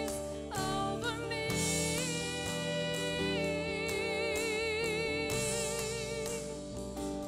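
Contemporary worship band playing a slow song: a woman's voice sings long held notes with vibrato over keyboard, guitar and drums.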